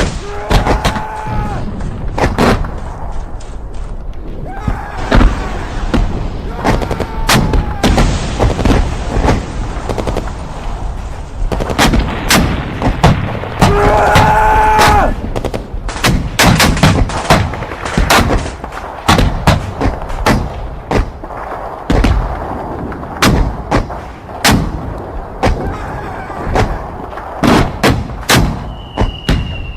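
Battlefield gunfire: a dense run of rifle and machine-gun shots, with men shouting over it a few times. A short falling whistle comes near the end.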